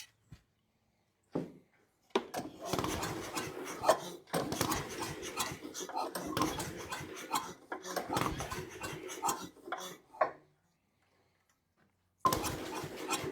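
A Tecumseh engine on a wood chipper being pulled over by its recoil starter in three long tries, turning the heavy chipper assembly but not starting.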